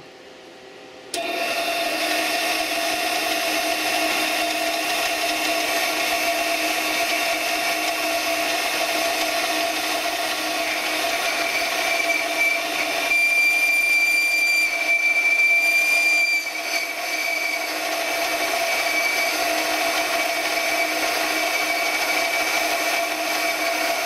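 Benchtop metal lathe switching on about a second in and running steadily with a whine, taking a light final cut on a brass fitting. A sharper high-pitched tone rises over it for about three seconds midway.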